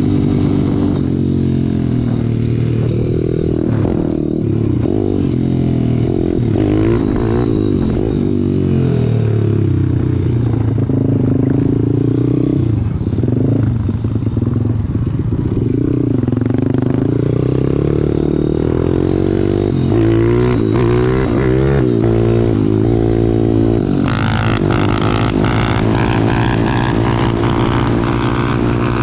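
Small single-cylinder four-stroke pit bike engine ridden along a street, its revs climbing and dropping again and again as the rider shifts and throttles. For the last few seconds the sound turns brighter and harsher as it is revved hard.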